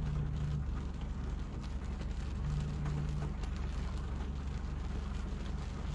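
Steady low background rumble, with a faint low hum that comes in briefly near the start and again about halfway through.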